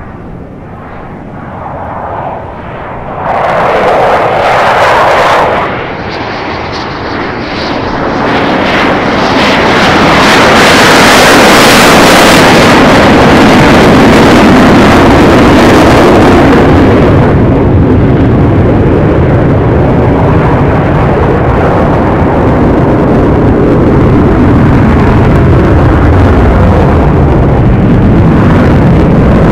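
USAF Thunderbirds F-16 fighter jet's engine, very loud, building from about three seconds in and peaking mid-way as the jet passes. The roar stays heavy afterwards, its pitch falling slowly near the end.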